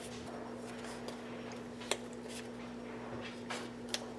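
Scissors snipping through a thin EVA foam sheet: a string of short snips, the two sharpest about two and four seconds in, over a steady low hum.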